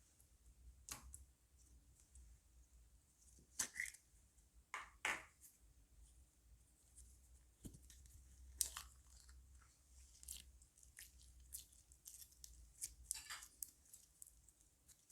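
Slime being squished and kneaded by hand: faint, scattered wet crackles and pops, a few louder ones clustered about four to five seconds in and again near nine seconds.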